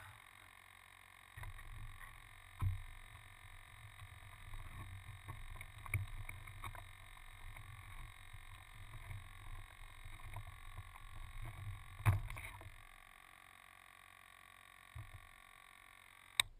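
Muffled handling noise from hands working at the nose of an electric RC plane that carries the camera: low rumbling and rubbing with a few knocks. It stops about two-thirds of the way in, and a single sharp click comes near the end.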